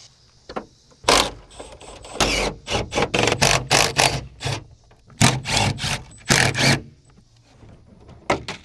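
A run of short, loud scraping and clunking noises, about a dozen over some six seconds, from car body parts and fasteners being worked loose and handled.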